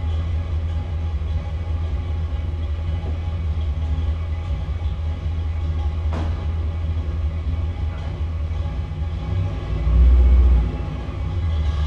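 A truck's engine idling steadily, with a brief louder surge of engine noise about ten seconds in.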